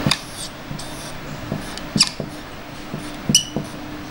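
Marker squeaking on a whiteboard while circles are drawn: a few short, high squeaks, one about two seconds in sliding down in pitch and another sharp one about three and a half seconds in.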